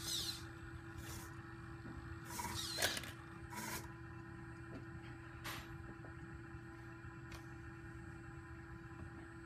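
Servo motors of a 5-degree-of-freedom DAGU robot arm whining in short bursts as the arm moves, the loudest a sweeping whine about two and a half seconds in, over a steady electrical hum.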